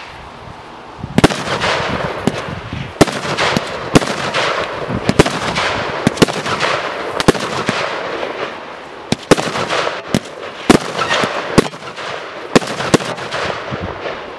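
Consumer firework barrage cake (Zeus Fireworks Blinking Gauntlet) firing shot after shot: sharp bangs about every one to two seconds, with a continuous crackling hiss between them.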